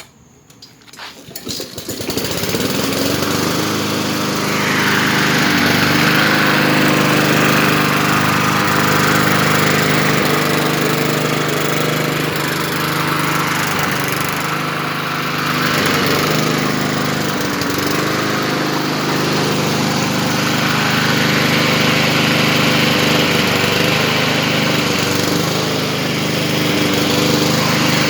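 A Troy-Bilt push lawn mower with a swapped-in Honda engine is pull-started, catching within about two seconds, then runs steadily, the engine swap working.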